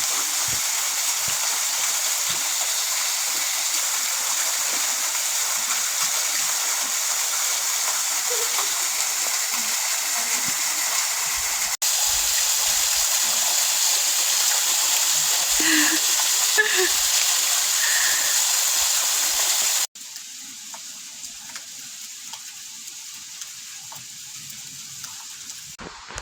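Steady rush of flowing water, cut off abruptly twice; after the second cut, over two-thirds of the way in, it gives way to a much quieter outdoor hush.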